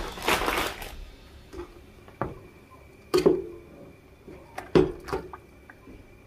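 A steel stockpot of steaming water knocked and clanked a handful of times as a live lobster is put into it, the loudest knock about three seconds in and two more close together near five seconds.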